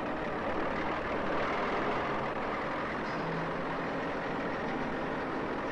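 Asphalt finisher (paver) running steadily as it spreads asphalt concrete: an even machinery noise with a faint low engine hum.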